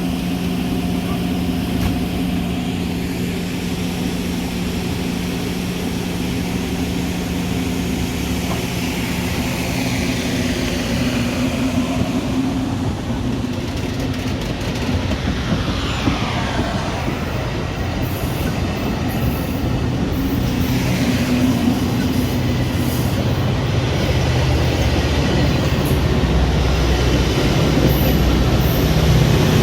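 Metra commuter train running with a steady low hum. There is a brief pitch sweep, falling then rising, about halfway through, and the sound grows louder over the last few seconds.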